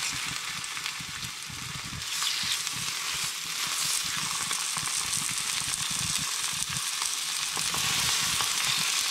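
Grouse meat sizzling as pieces are laid into a hot cast-iron skillet. The sizzle means the pan is hot enough to fry. The hiss grows louder about two seconds in as more pieces go in.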